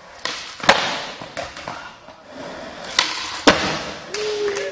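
Skateboard wheels rolling on a smooth concrete floor, with sharp clacks of the board being popped and landed in flatground tricks: three clear strikes, the loudest about three and a half seconds in.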